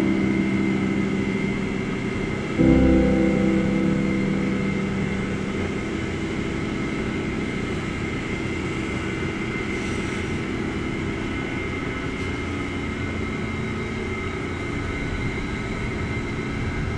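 Background music: slow, sustained chords. A new chord lands with a low thump about two and a half seconds in and fades out slowly.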